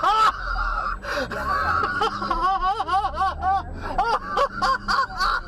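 A person's high-pitched wordless cries: a sharp gasp at the start, then a run of short squeals that rise and fall in pitch.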